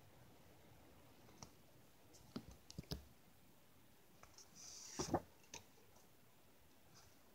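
Faint handling of paper note cards: a few light taps and clicks, then a brief paper rustle with a couple of sharp knocks about five seconds in as one card is swapped for the next.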